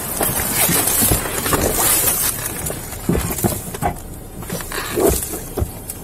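Rustling and handling noise on a body-worn camera's microphone as its wearer climbs into a patrol car's driver's seat, turning to scattered knocks and clicks after about three seconds.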